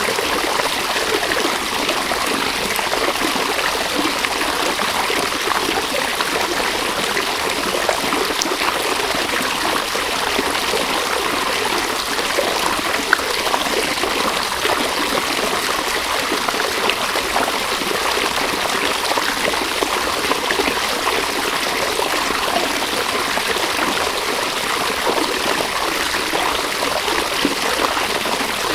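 A river flowing steadily over stones, a constant rushing and babbling of water.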